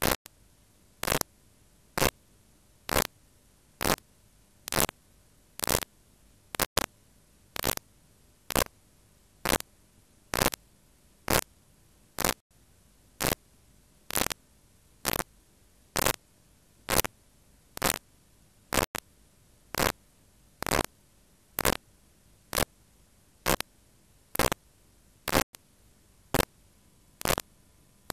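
A sharp click repeating evenly, a little faster than once a second, over a faint steady hiss.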